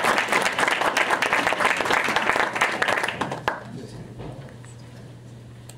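A room full of people applauding, which cuts off abruptly about three and a half seconds in, leaving only a faint steady low hum.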